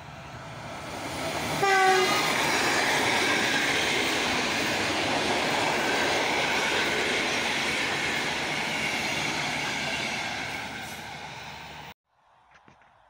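Passenger train hauled by an EU160 electric locomotive passing at speed. A short horn note sounds nearly two seconds in as the locomotive goes by, then a steady rush of coach wheels on the rails slowly fades and cuts off abruptly near the end.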